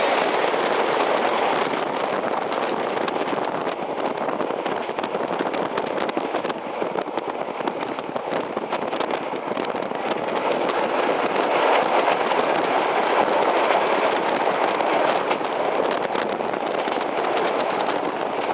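Steady running noise of a moving PKP TLK passenger train, heard from on board: the wheels on the rails and the rush of travel. It grows louder about two-thirds of the way through.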